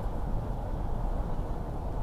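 Steady low road and engine noise heard from inside a moving vehicle's cab.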